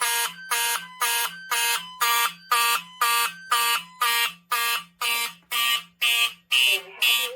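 Fire alarm horns (Simplex and Wheelock notification appliances) sounding a general alarm, set off by a manual pull station. The tone pulses on and off evenly, about twice a second.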